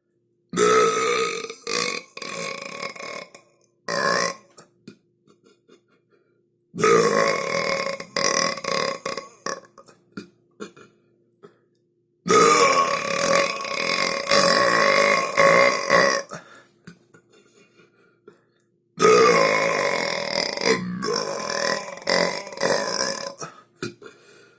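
A run of about five long human burps, one after another, each held on a fairly steady pitch and lasting from half a second to about five seconds, with short gaps between them.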